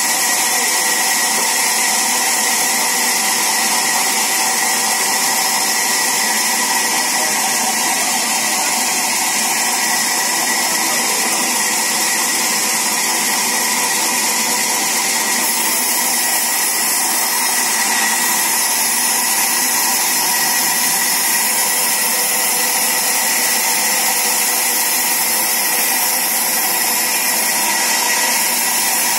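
Large sawmill band saw running while wooden planks are ripped lengthwise through it: a constant, even machine noise with a high hiss that does not let up.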